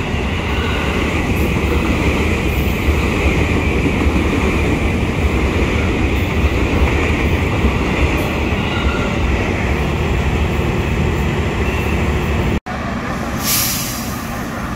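Electric KRL commuter train running past close by, a loud steady rumble of wheels and cars with a high ringing band above it. Near the end the sound cuts abruptly to a quieter rumble with one short hiss.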